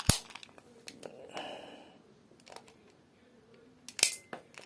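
Toy gun loaded with plastic bullets being fired: a sharp click just after the start and another about four seconds in, with light plastic handling noise between.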